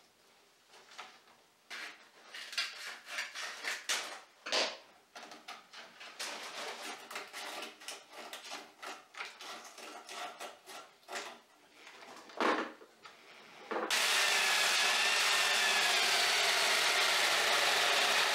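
Sandpaper strip rustling and scraping as it is wrapped by hand around the wooden drum of a homemade drum sander, with scattered knocks. About fourteen seconds in, the electric drill that drives the drum starts abruptly and runs loud and steady with a wavering whine.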